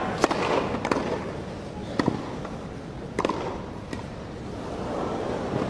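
Tennis ball struck by rackets in a serve-and-volley point: five sharp pops over about four seconds, unevenly spaced, over a low crowd hum that grows louder near the end.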